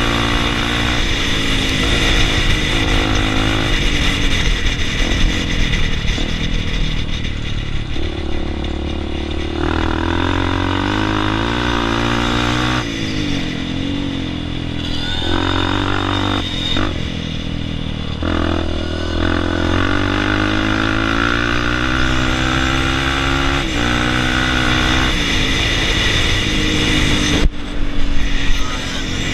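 Dirt-bike engines running and revving, their pitch climbing and dropping again and again as the bikes accelerate and shift. At times more than one bike can be heard at once.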